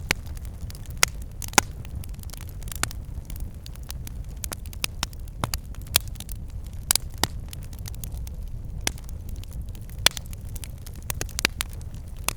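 Wood fire burning in a fireplace: irregular sharp crackles and pops, several a second, over a steady low rumble.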